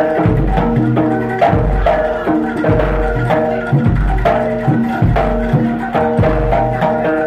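Javanese jaranan gamelan music: hand drums keep a steady beat under ringing metal gong-chime tones, with a deep stroke about once a second.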